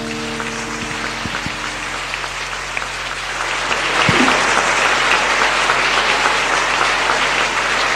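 A congregation applauding, many hands clapping at once, the clapping swelling louder about four seconds in.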